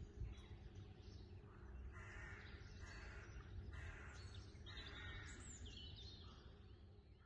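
Wild birds calling: a series of short harsh calls about a second apart, then thinner high whistled calls about five seconds in, over a faint low steady rumble of outdoor background noise, fading near the end.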